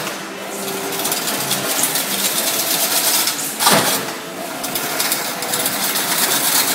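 Automatic chain-link fence weaving machine running: a dense, steady mechanical clatter, with one louder rushing stroke of its working cycle a little under four seconds in.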